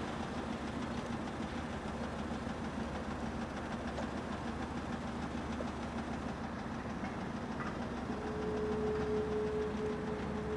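Steady low mechanical hum, engine-like; a steady higher-pitched tone joins about eight seconds in.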